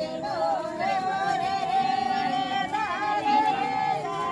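Several voices singing a folk song together, without instruments, holding long notes.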